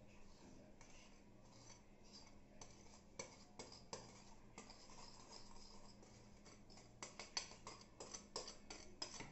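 Faint scattered clicks and scrapes of a utensil against a mixing bowl as powdered sugar is stirred into beaten eggs, coming quicker near the end.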